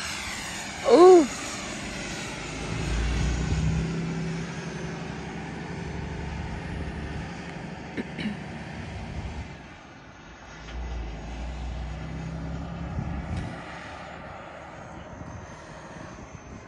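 Freewing B-2 RC jet's electric ducted fans whining as it flies away, the pitch falling and the sound fading. Two stretches of low rumble come and go.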